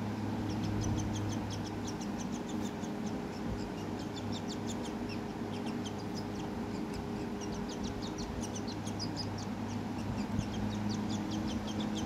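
A black downy baby bird peeping: a rapid, continuous string of short, high-pitched peeps, with a steady low hum underneath.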